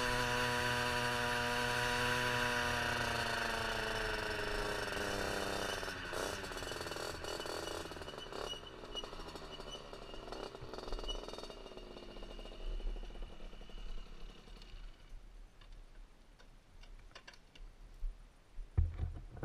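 Derbi Senda 50's two-stroke engine running steadily, then eased off so its pitch falls and it dies away as the bike slows to a stop. A few clicks and knocks near the end.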